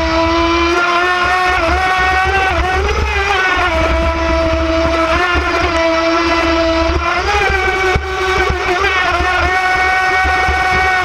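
WLtoys Arrow RC speedboat's electric motor, on a 3S LiPo battery, running at high speed with a steady whine that wavers and dips briefly twice, about three seconds in and again near eight seconds. Heard close up from a camera on the boat's deck, over a low rush of water.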